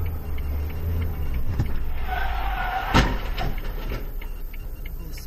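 Car engine rumbling, then tyres squealing under hard braking, and a single sharp bang of a collision about three seconds in, as the dashcam car runs into the back of a small box van.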